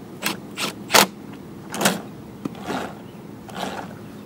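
Clacks and scrapes of hand-fitting a lawn mower wheel and its washers onto the axle: about six irregular knocks, the loudest about a second in.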